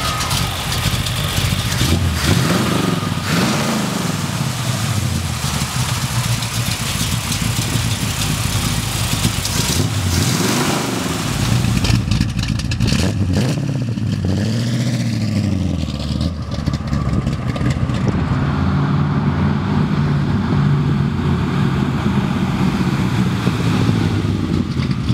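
1955 Chevy 210's small-block 400 V8 with headers and dual exhaust, revved repeatedly, its pitch climbing and falling again several times, then running more steadily near the end.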